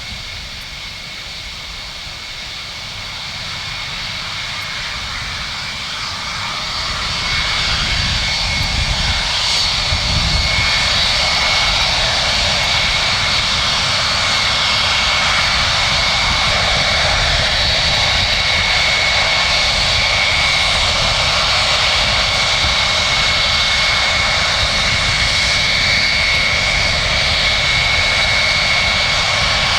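Four Pratt & Whitney JT3D turbofans of a Douglas DC-8-55F running, a steady high whine over a low rumble. The sound grows louder over the first several seconds, then holds at a steady loud level.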